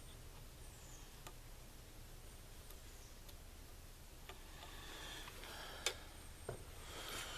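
Faint clicks and scraping of metal rifle parts being handled and fitted on an AR-style upper receiver, with a sharper click about six seconds in.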